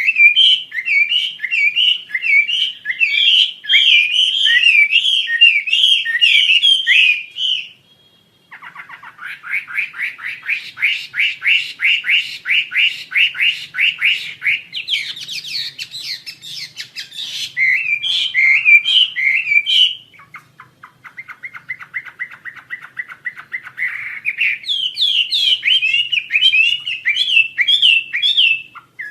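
Wambi Asia songbird singing a long, varied song: runs of rapid warbled notes alternating with fast trills, with a short break about eight seconds in and a quieter, lower trill past the middle before loud warbling returns.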